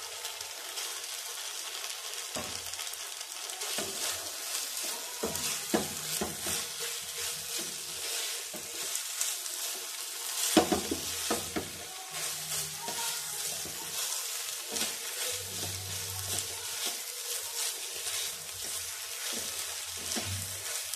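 Fried potato wedges being stirred into bubbling chilli sauce in a non-stick pan: a silicone spatula scrapes and turns them over a steady sizzle. One scrape about halfway through is louder than the rest.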